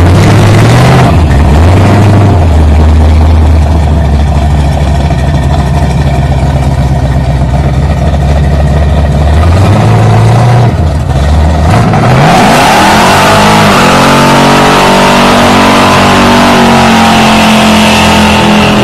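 A Chevrolet Chevelle muscle car's engine running with a deep note and blipped a few times. About two-thirds of the way through the revs climb quickly and then hold high, joined by a loud hiss of spinning rear tyres as the car does a smoky burnout.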